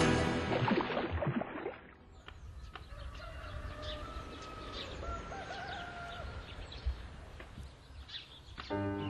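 Theme music fades out. A quieter outdoor stretch follows, with small birds chirping and a rooster crowing once midway, before the music comes back in near the end.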